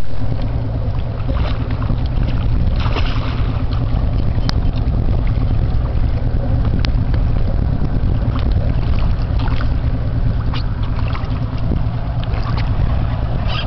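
Motorboat engine running steadily as a low rumble, with wind on the microphone.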